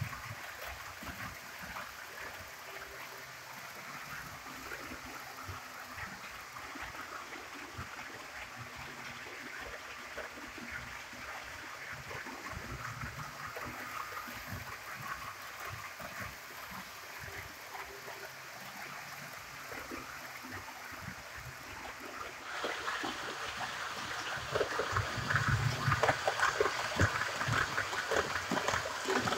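HO-scale model train coaches rolling along sectional track, their metal wheels making a steady, fine rattling clatter over the rail joints and points. About three-quarters of the way through the clatter gets louder.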